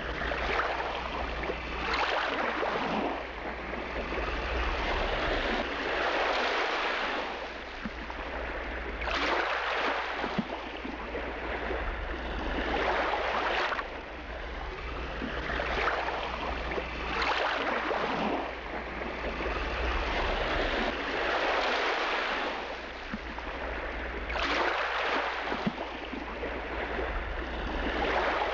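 Passenger motorboat under way on a river: a steady low engine drone under a wash of rushing water and wind, swelling and fading about every four seconds.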